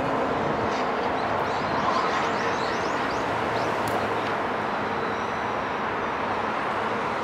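Steady outdoor background noise, with a quick run of faint high bird chirps between about one and a half and three seconds in.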